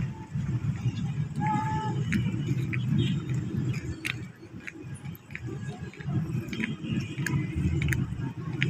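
Outdoor street ambience: a steady low rumble with a few light clicks, and a short pitched tone about one and a half seconds in.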